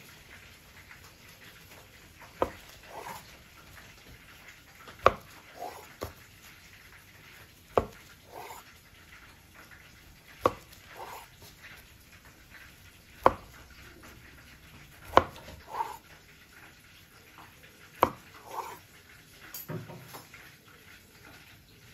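Kitchen knife cutting through a salmon-topped sushi roll and knocking on a wooden cutting board: about seven sharp taps, one every two to three seconds, each followed by a softer sound just after.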